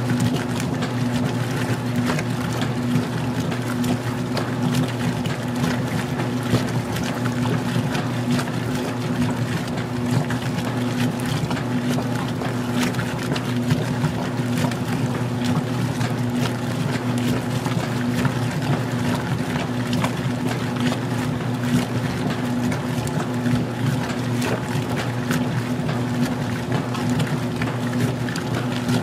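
Magic Chef 20-pound washer agitating during its wash phase: a steady motor hum under churning water, with many small clicks.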